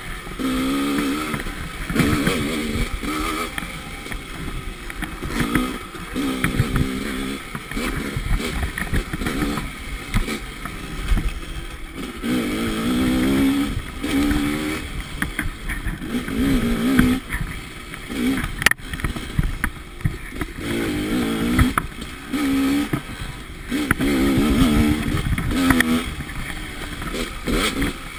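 Dirt bike engine revving up and falling back over and over as the throttle is opened and closed on the move, over a constant noisy rush. One sharp knock is heard about two-thirds of the way through.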